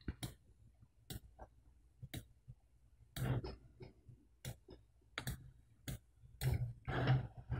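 Computer mouse clicking, single sharp clicks about a second apart, with a few short low vocal sounds, like throat or mouth noises, in between.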